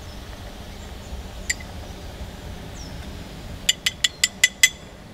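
A metal spoon clinking against a glass jar: one tap, then about six quick taps in a second near the end, knocking food off the spoon.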